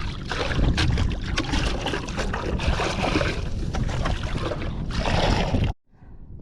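Wind buffeting the microphone over wet sloshing and short knocks of mud and water while ghost shrimp are being dug. The sound cuts off suddenly near the end.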